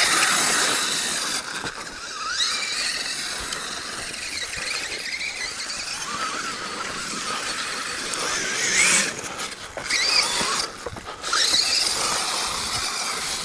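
Traxxas Summit RC truck's 2700KV brushless motor and gear train whining over a steady hiss. The pitch rises and falls several times as the throttle is worked, with the loudest rising whines in the second half.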